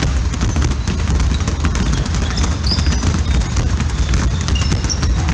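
Many basketballs being dribbled at once on a gym floor: a dense, steady run of overlapping bounces.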